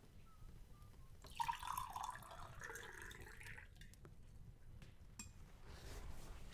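A drink poured into a cup for a little over two seconds, the pitch of the pour rising as the cup fills. A few light clicks follow.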